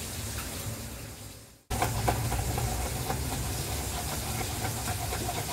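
Kitchen knife chopping garlic on a cutting board in faint knocks, over a steady hiss of fish frying in oil. The sound drops out briefly about a second and a half in, then returns.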